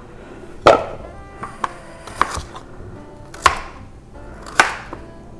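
Paring knife cutting through small raw new potatoes and knocking on a plastic cutting board: about five sharp chops, roughly one a second.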